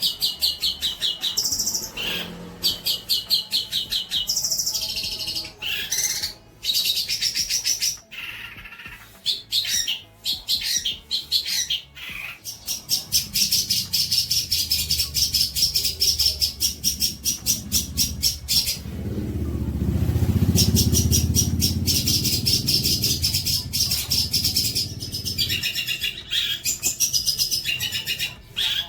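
A songbird singing in fast, chattering runs of rapid high notes, broken by short pauses: recorded bird song played as masteran, training material for young songbirds to copy. A low rumble sits beneath the song through the middle stretch.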